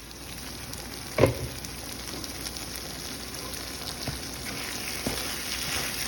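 Food sizzling in hot oil in a pan, a steady hiss that slowly grows louder. There is one sharp knock about a second in and a few lighter clicks later.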